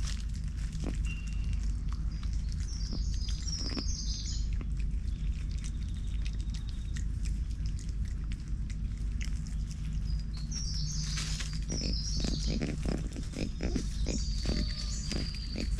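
Birds chirping in bursts of short high notes over a steady low background hum. In the last few seconds comes a quick run of short, soft, low sounds.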